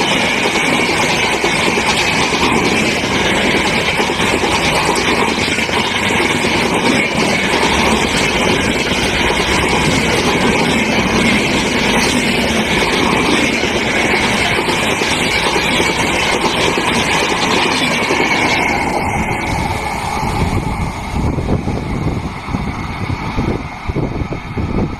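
LHB passenger coaches of an express train rushing past at speed: a loud, steady rush of wheels rolling on rail with a constant high ring. About nineteen seconds in it eases off and becomes quieter and more uneven as the last coach passes and draws away.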